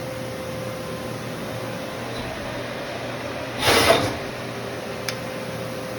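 Brother Speedio R450X1 vertical machining center running with a steady hum and a faint steady tone. A short loud rush of noise comes a little over halfway through, then a single sharp click about a second later.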